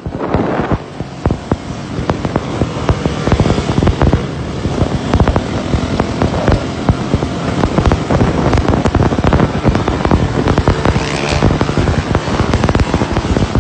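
Dirt bike engines running close by during wheelies, heard as a loud, dense, irregular crackle of sharp pops.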